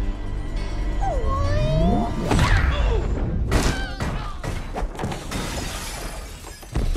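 Film action soundtrack: music under heavy thuds and a crash of shattering glass as a man is kicked through a wall, the biggest impacts about two and a half and three and a half seconds in.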